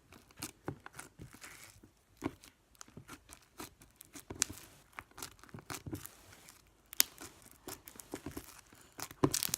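Homemade slime with beads mixed in being squeezed and stretched by hand, giving irregular small clicks and crackles.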